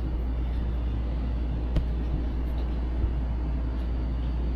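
A steady low rumble with an even hiss over it, and one sharp click a little under two seconds in.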